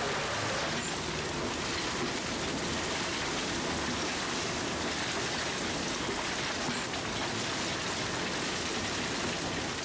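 Steady rushing clatter of loose coal moving along a conveyor in an underground coal mine.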